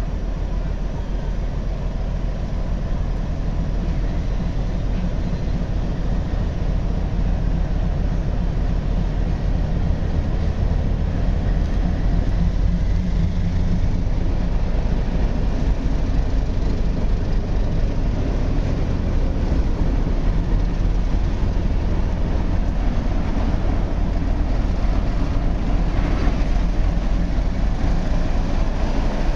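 Diesel switcher locomotive's engine running with a steady low rumble as it creeps slowly toward and past, growing gradually louder as it draws close.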